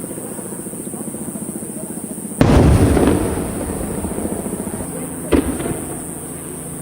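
Aerial firework shells bursting. A loud boom about two and a half seconds in rumbles on for most of a second, and a shorter, sharper bang follows about five seconds in.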